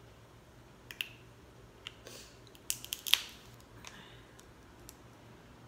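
King crab leg shell being cracked and picked apart by hand: a few sharp cracks and snaps, the loudest about three seconds in, with a short crunch just after two seconds.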